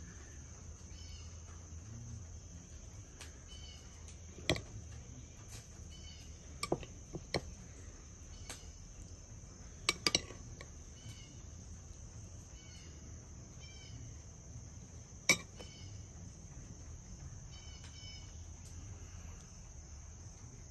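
A handful of sharp clicks and clinks of a metal spoon against a glass bowl and the burgers as chopped green chiles are spooned out. Under them, a faint, steady chorus of crickets and other insects chirping.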